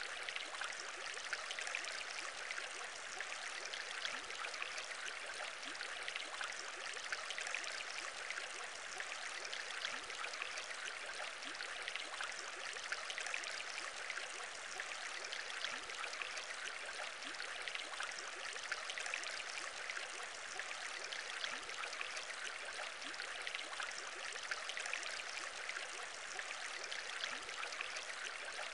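Aquarium air bubbles bubbling steadily through water: a dense patter of small pops over a constant rushing hiss.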